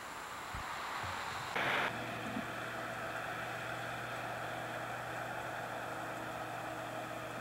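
Outdoor hiss with a high insect buzz, broken about a second and a half in by a brief loud burst of noise where the camcorder recording cuts. After it comes a steady low hum with hiss.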